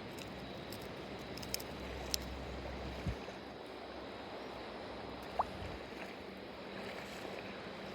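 Steady noise of flowing water, with a few faint clicks, a low thump about three seconds in and a brief rising chirp about five seconds in.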